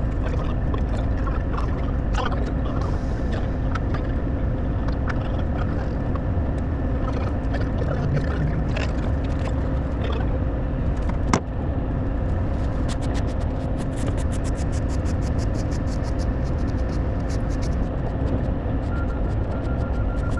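Komatsu PC210 excavator's diesel engine running steadily inside the cab, with scattered rattles and clicks from the machine. There is a single sharp knock about eleven seconds in, then rapid ticking through the second half, and a steady high tone comes in near the end.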